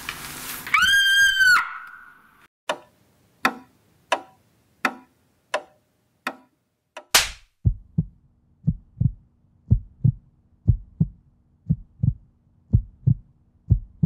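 Film sound effects: a brief high shrill sound about a second in, then six sharp ticks under a second apart. Around seven seconds in comes a loud hit, followed by low thumps in a quick, heartbeat-like rhythm over a faint hum.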